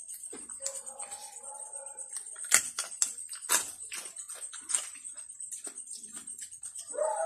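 Crisp roast-pig (lechon) skin and meat being torn apart by hand: a run of sharp crackles and snaps, the loudest about two and a half seconds in. A short whining tone comes about a second in and a falling one near the end, over a faint steady high whine.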